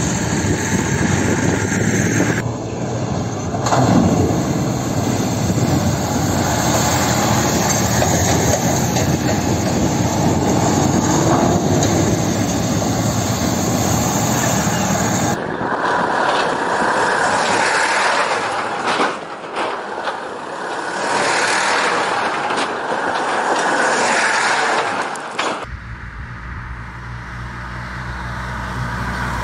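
Ural army trucks driving hard off-road, their engines running under load amid heavy road and wind noise. The sound changes abruptly a few times as the shots change, ending in a low rumble.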